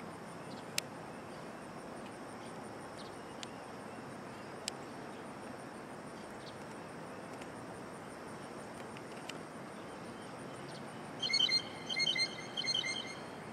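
Faint outdoor ambience: a steady hiss with a few faint clicks, then, a little after halfway, a quick run of high, ringing chirps lasting about two seconds.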